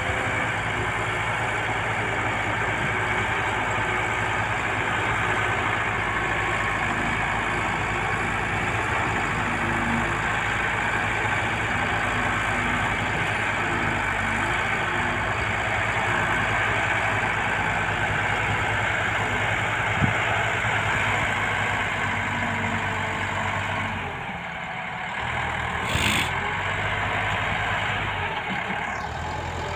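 Cat 130G motor grader's diesel engine running steadily while the blade cuts and pushes soil. A single sharp knock comes about two-thirds of the way through, then a brief clatter a few seconds later.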